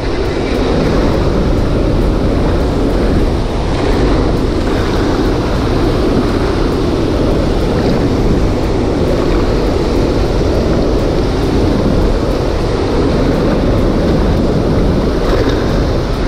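Steady rush of water pouring out of a dam spillway and churning into the river, loud and unchanging.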